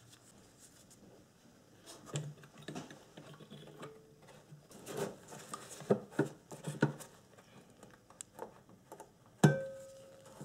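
Small clicks, taps and rustles of an HID xenon bulb and its igniter wiring being handled and fitted into a plastic headlight housing. Near the end a sharper click rings briefly.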